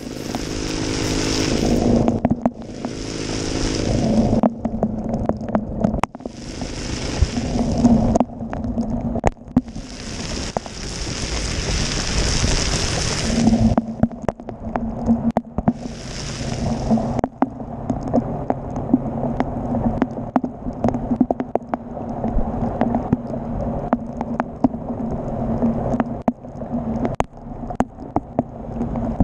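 Honda Dash 125's two-stroke single-cylinder engine running steadily while riding in heavy rain. Over it come several hissing rushes of a few seconds each in the first half, each swelling and then cutting off.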